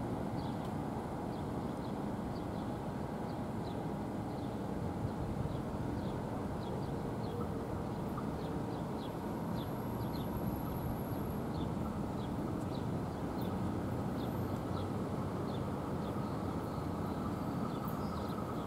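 Steady outdoor background rumble with faint, short, high bird chirps repeating irregularly about every half second.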